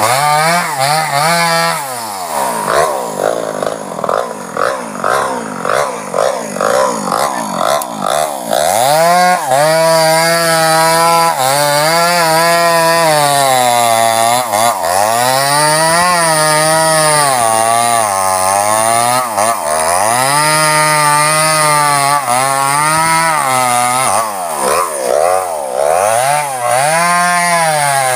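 Two-stroke chainsaw cutting through a sengon log. For a few seconds early on the engine runs unevenly in quick short surges. After that it holds a high pitch that repeatedly sags and recovers as the chain bites into the wood.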